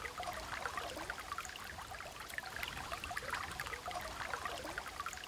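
Shallow small river running steadily, its water babbling and trickling.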